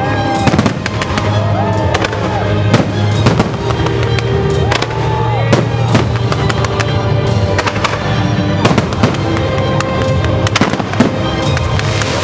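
Fireworks display: many sharp bangs in quick, irregular succession, a few short rising-and-falling whistles among them, over music playing along with the show.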